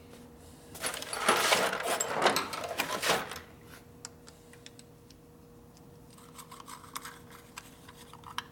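Small metal parts and hand tools jangling and clinking as they are handled, with a loud stretch of rattling about a second in that lasts about two seconds, then fainter light clicks near the end.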